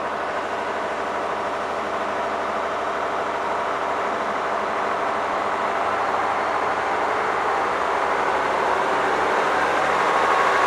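Diesel engines of a Northern Ireland Railways CAF Class 3000 (C3K) multiple unit under power as the train pulls away, growing steadily louder, with the engine note rising in pitch near the end as it accelerates.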